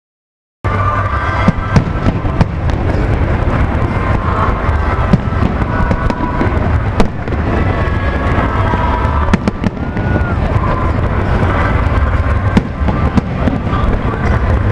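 Aerial fireworks display going off: dense crackling and sharp bangs over a steady rumble, after a brief dropout of sound at the very start.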